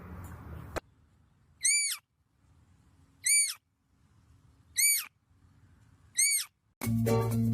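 A bird's short call, rising then falling in pitch, repeated four times about a second and a half apart. Music starts near the end.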